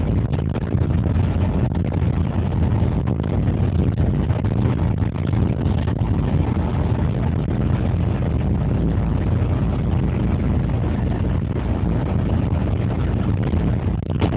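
Steady, deep running noise of a 2TE116U diesel locomotive under way, heard inside its cab: the diesel engine working together with the wheels rolling on the rails.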